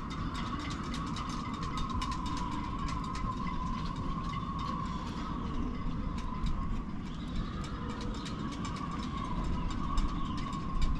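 Wind blowing around a moored sailboat: a steady low rumble with a constant high hum, and many light, irregular taps and clinks, the kind that halyards make slapping against masts.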